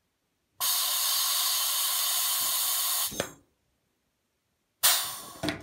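Pneumatic rivet squeezer hissing with compressed air for about two and a half seconds, ending in a short clunk. A second, shorter hiss of air comes about a second and a half later, with a click in it.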